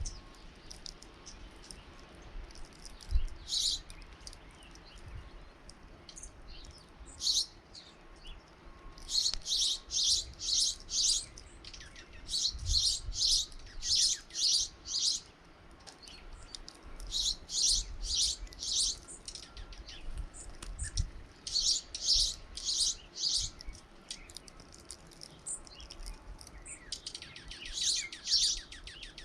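Small songbirds chirping in runs of short, high notes, several notes a group with brief pauses between groups, and a quicker trill near the end.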